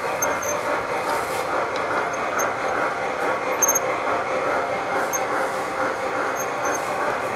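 Gauge 1 model freight cars and caboose rolling past on the track: a steady rolling rumble, with a few faint, brief high squeaks from the wheels on the curve.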